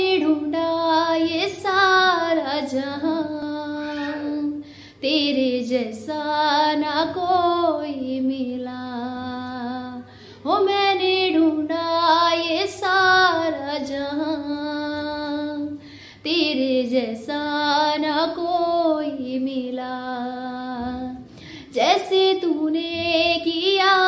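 A woman singing a Hindi Christian devotional song solo and unaccompanied, in long sustained phrases with short breaks for breath.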